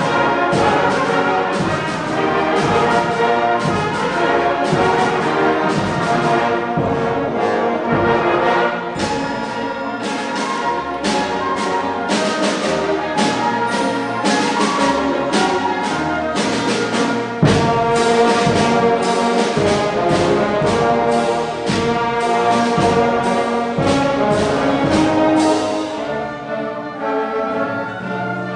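A full orchestra playing live in a concert hall, brass to the fore over strings, with a steady driving beat of accents about twice a second. Near the end the beat stops and the texture thins out.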